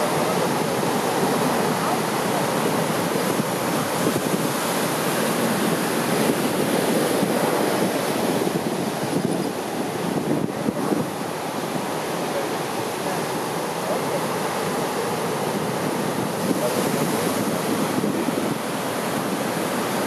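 Heavy storm-swell surf breaking and washing up a sandy beach and against rocks, a continuous rush of breaking waves.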